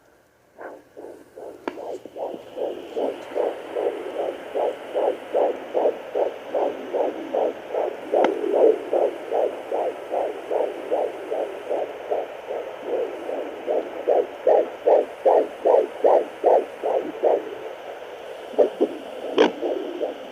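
Fetal heartbeat through a Contec pocket fetal doppler's speaker: a fast run of whooshing pulses, about two to three a second, that sets in after a couple of clicks at the start. The pulses weaken and break up near the end, and a sharp knock comes shortly before the end.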